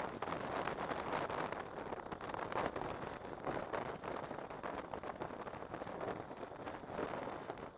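Wind rushing over the microphone of a motorcycle riding at road speed: an uneven, unbroken rush of noise with no engine note standing out.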